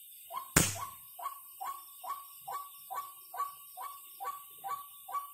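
An animal calling at night, repeating one short falling note about twice a second at a very even pace, over a faint steady whine. A single sharp click about half a second in is the loudest sound.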